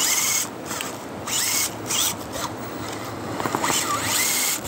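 Ice and snow crunching and scraping in short rasping bursts, four or five times, over a steady lower noise.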